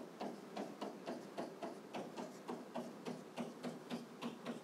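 Soft, steady ticking like a clock, about four ticks a second, each with a low note under it: a ticking beat in the background.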